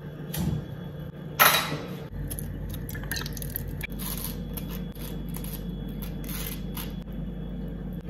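Breakfast-making clatter: metal pans and utensils clinking and scraping, with the loudest clatter about a second and a half in, over a steady low hum.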